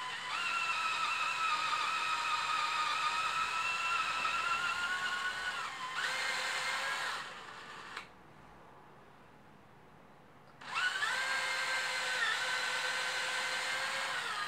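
Cordless drill with a larger cobalt HSS bit drilling out a broken M6 bolt in a motorcycle engine casing, enlarging the hole so an extractor can be used. The motor whines for about seven seconds, its pitch stepping up shortly before it stops. After a pause of about three seconds it starts again.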